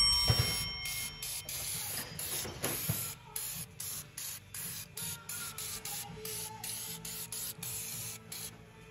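Fluid Film rust inhibitor being sprayed onto a car's suspension control arms: a hiss in short, repeated bursts.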